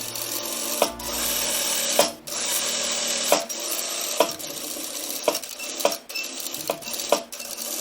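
Sewing machine stitching a folded skirt hem, with a steady running sound broken by sharp, lightly ringing clicks about once a second.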